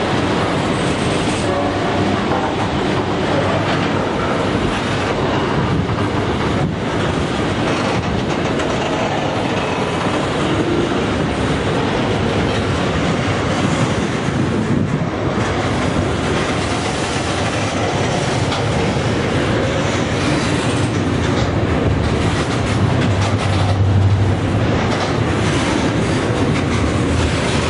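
Container flat wagons of a long freight train rolling past close by: a steady rumble of steel wheels on the rails, with the clickety-clack of wheels over the rail joints.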